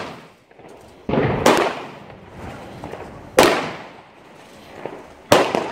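Fireworks going off: a loud bang roughly every two seconds as shots launch and burst overhead, each bang trailing off into a fading echo.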